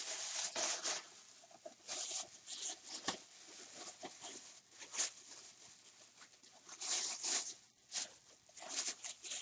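Thin plastic shopping bag rustling and crinkling in irregular bursts as hands rummage in it.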